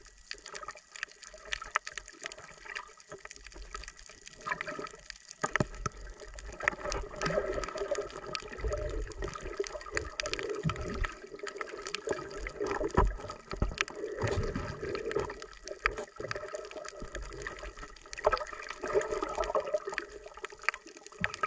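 Water sounds picked up by a camera underwater: irregular gurgling and bubbling with many scattered small clicks and knocks, and low muffled rumbles that come and go from about five seconds in.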